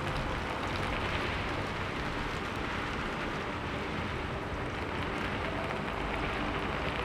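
Steady rain falling, an even hiss, with a few soft held notes of background music faintly beneath it, growing a little clearer near the end.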